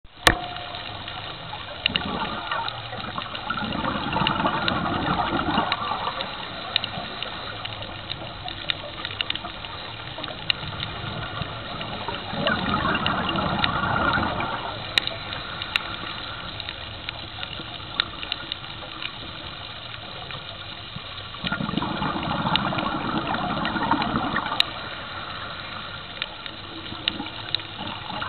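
Scuba diver's exhaled bubbles underwater: three long rushes of bubbles from the regulator, about nine or ten seconds apart, with quieter watery noise and small clicks between.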